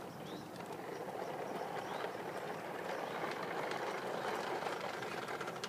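A passing vehicle: a steady rushing noise that builds over the first few seconds and eases off near the end.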